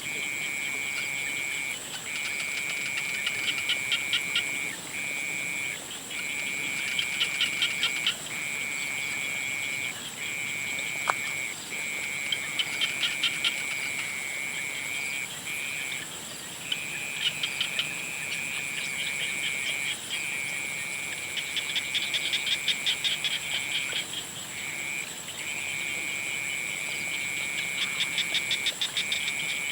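A chorus of frogs calling: a steady high trill broken by short gaps every couple of seconds, with louder trains of rapid pulsed calls every few seconds. A constant very high tone runs underneath.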